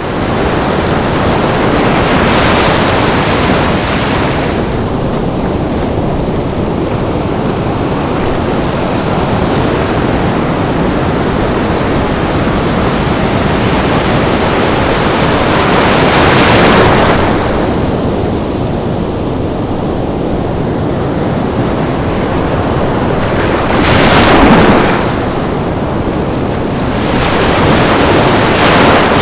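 Sea waves breaking on a beach: a steady wash of surf with several louder waves, about two seconds in, near sixteen seconds, near twenty-four seconds and again near the end.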